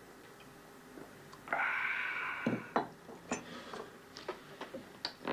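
A loud breathy exhale lasting about a second, after a swallow of coffee punch. It is followed by a run of short, light knocks and clinks of china cups being set down on saucers.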